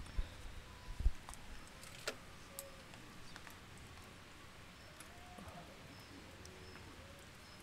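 Quiet wet-forest ambience: scattered drips and ticks, a few faint short bird calls, and two low thumps about a second apart near the start.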